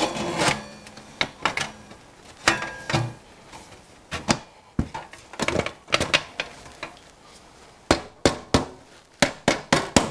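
Galvanized sheet-metal damper wall being set onto the frame, knocking and clattering with a metallic ring as it is pushed into the profiles. About eight seconds in, a quick run of small-hammer taps starts, knocking the sheet home.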